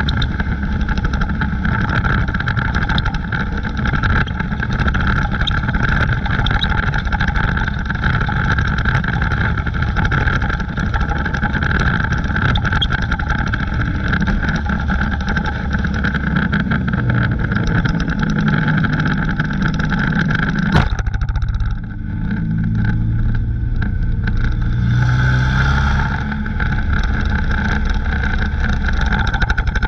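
Dirt-track race car's engine running loud, heard from inside the cockpit. About 21 seconds in there is one sharp knock, and for the next few seconds the sound is duller.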